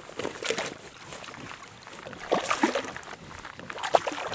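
Water splashing and knocking as a hooked rainbow trout is netted beside a kayak: the net dipping in and the fish thrashing, in a few short bursts, the sharpest near the end.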